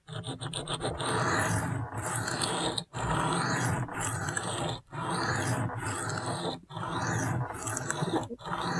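Spyderco Shaman's Cruwear steel blade scraping freehand across a wet sharpening stone, in steady strokes broken by short pauses about once a second, grinding the edge bevel on the blade's second side.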